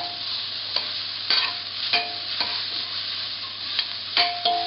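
Broccoli sizzling in oil in a stainless steel pan while being stir-fried with a metal spoon. The spoon clinks against the pan about six times, each with a short metallic ring, over a steady frying hiss.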